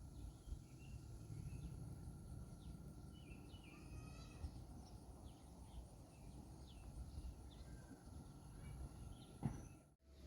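Faint outdoor ambience: scattered short bird chirps and calls over a low, steady background, ending in an abrupt cut near the end.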